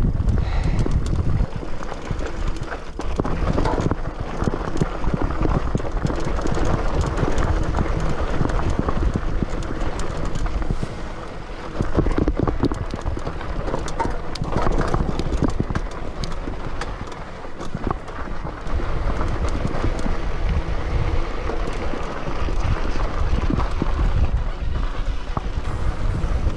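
Mountain bike ridden fast over rocky, gravelly singletrack: tyres crunching on the dirt and the bike rattling and clattering over rocks in a steady run of knocks, with heavy wind rumble on the handlebar-mounted camera's microphone.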